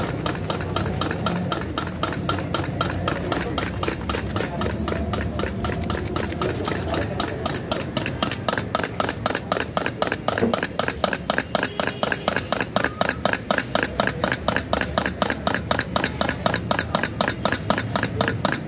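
Vegetables being shredded on a hand grater in quick repeated strokes, then eggs being beaten with a spoon in a steel bowl, clinking rhythmically about four times a second, over a steady low hum.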